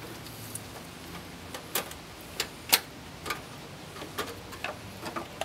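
Scattered light clicks and taps at irregular spacing, about a dozen in all, as hands handle and fit parts of a car's battery tray in the engine bay.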